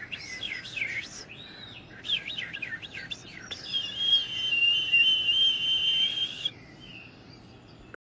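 Songbird calls and song played from a TV bird video. Quick rising and falling chirps come first, then about halfway in a loud, steady, high trill lasts about three seconds and stops abruptly.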